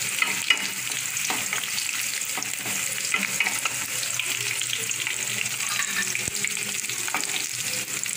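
Small onions and curry leaves sizzling in hot oil in an aluminium kadai, with a steady hiss. A wooden spatula stirs and scrapes them, knocking against the pan with short clicks now and then, one sharper knock about half a second in.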